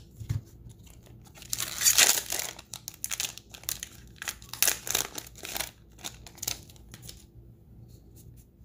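A foil trading-card booster pack being torn open and crinkled by hand. The loudest tear comes about two seconds in, followed by irregular crinkling of the wrapper that dies down near the end.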